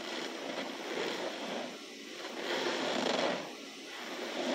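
A hand pressing and squeezing into loose cornstarch powder in a plastic tub, giving a soft crunching that swells with each press. The loudest press comes a little past the middle.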